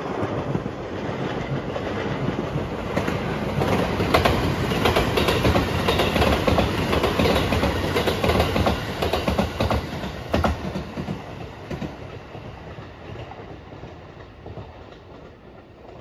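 A JR Rapid Marine Liner electric train (223-series cars) passes close by at speed. Its wheels clatter over the rail joints, with sharp clacks about four and ten seconds in. The rumble builds, is loudest in the middle, and fades away over the last few seconds.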